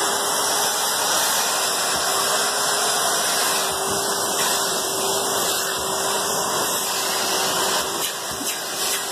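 Henry cylinder vacuum cleaner running steadily while vacuuming fine fake snow off a carpet: a constant rushing suction noise with a steady motor whine.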